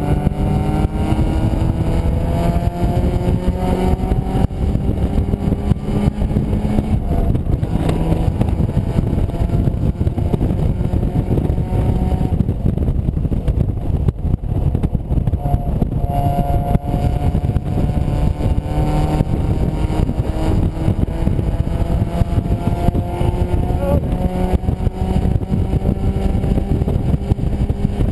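Mazda MX-5's four-cylinder engine pulling hard on track, its note climbing through the revs, easing off about a third of the way in, then climbing again through the second half. Heard from the open cockpit with heavy wind buffeting on the microphone.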